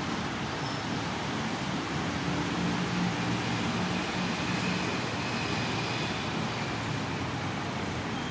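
Steady rushing background noise, like distant traffic, with a faint low hum; no separate lapping sounds stand out.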